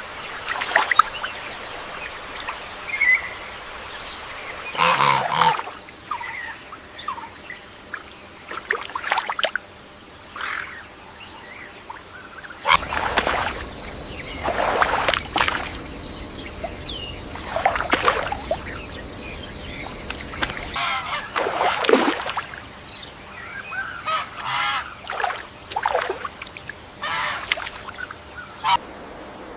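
Birds calling over and over, short loud calls every second or two, some sweeping down in pitch, over a steady background hiss.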